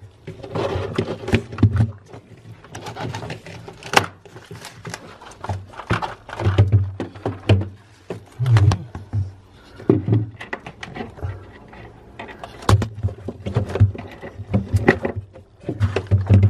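Plastic rear cover panel inside a fridge-freezer being worked loose and handled: an uneven run of clicks, knocks and scraping of plastic, with a louder sharp knock about four seconds in.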